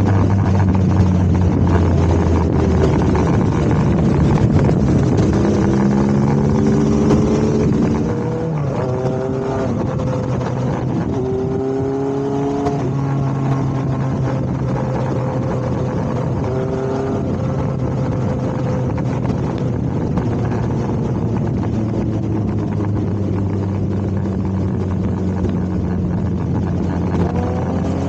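Motorcycle engine running under way, with a steady drone and several rising pitch sweeps as the revs climb and drop through the gears.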